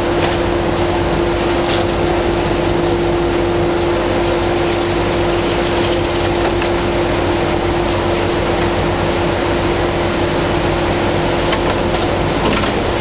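Hitachi ZX650 demolition excavator's engine and hydraulics running steadily under load with a constant whine, while its attachment works through the brickwork. A few sharp knocks of breaking or falling debris come through, about two seconds in and again near the end.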